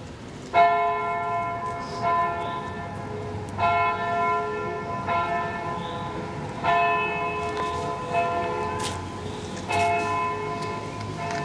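A church bell tolling steadily, one ringing stroke about every second and a half, the strokes alternating louder and softer.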